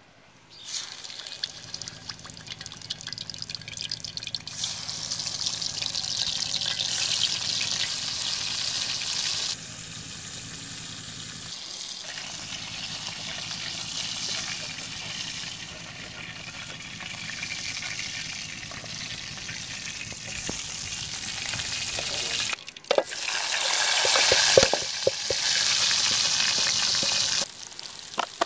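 Fish pieces frying in hot oil in a small metal karahi, sizzling, while a slotted spoon turns them. The sizzle comes in several stretches that start and stop abruptly, loudest near the end, with a few knocks of the utensil against the pan.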